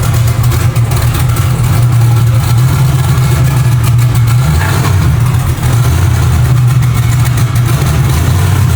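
A Chevrolet Nova's engine running loud and steady with a deep low rumble, freshly started.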